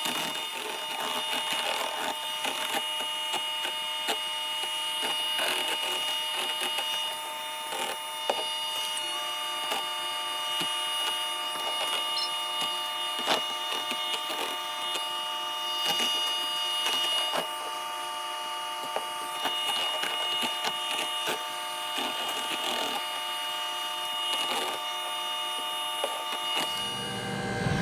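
Electric hand mixer running steadily with a whine on a slow setting, its beaters churning unflavoured gelatin into water in a plastic tub, with scattered clicks throughout.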